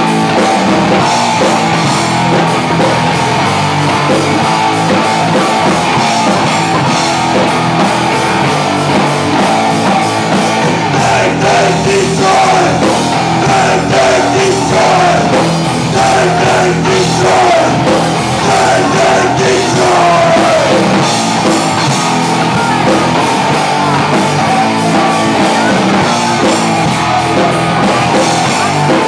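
Live rock band playing loudly without a break: electric guitars over a drum kit.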